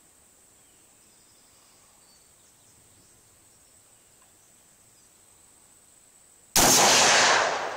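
A single AR-15 rifle shot about six and a half seconds in, loud enough to clip the phone's recording, then fading away as it echoes. Before it there is only faint outdoor background hiss.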